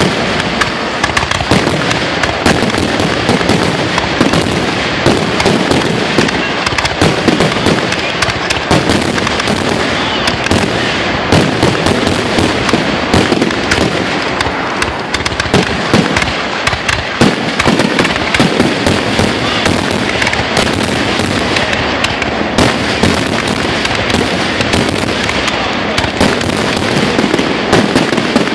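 Aerial fireworks shells bursting overhead in a dense, continuous barrage: loud, rapid, overlapping bangs with no pause between them.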